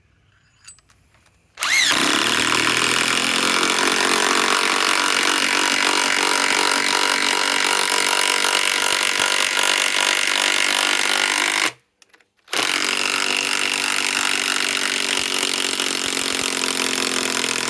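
DeWalt DCF891 mid-torque cordless impact wrench hammering on a 10-inch lag bolt in two long continuous runs: about ten seconds, a brief stop, then about five more. It is being run hard to drain a 3.5 Ah PowerStack battery.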